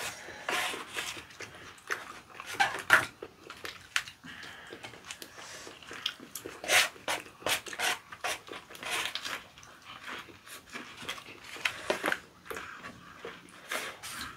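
Chewing and mouth sounds of people eating raw squid sashimi wrapped in leaves: irregular wet smacks and crunches, with no steady rhythm.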